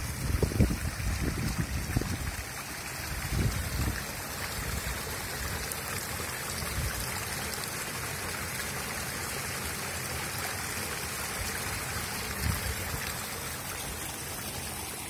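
Shallow runoff water flowing steadily through a grassy field channel and across a cloth sheet spread as a fish trap, with a few low bumps near the start.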